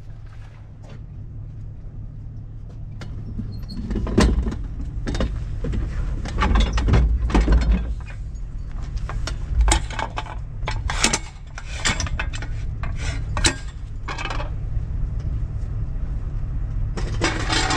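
Tow truck's engine running steadily while its hydraulic wheel lift raises the front of a car, with a run of sharp metal clanks and clicks from the lift and its hardware through the middle and a louder noisy stretch near the end.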